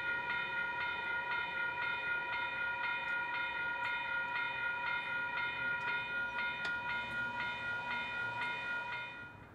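Railroad grade crossing warning bell ringing steadily, about three dings a second, then stopping near the end as the crossing warning ends.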